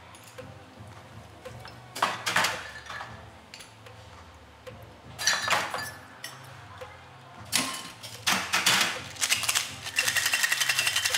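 A cocktail being made: glass bottles and metal shaker tins clink and knock in a few separate bursts as spirits are poured. Near the end a fast, even rattle of ice in a metal cocktail shaker being shaken hard.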